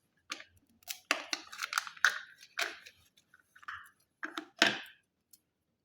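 Irregular plastic clicks, snaps and scrapes from handling the colour print cartridge of a Canon ink-tank printer as it is unsealed and fitted into the carriage, about a dozen over the first five seconds.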